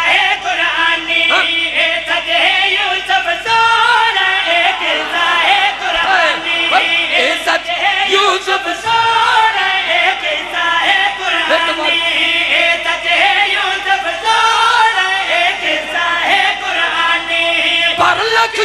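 Several men singing a devotional qasida together in chorus, amplified through microphones, with no break in the singing.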